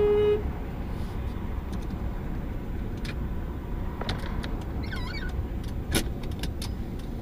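Steady low rumble of a car on the road, with a few faint clicks. A held, pitched tone stops suddenly within the first half second.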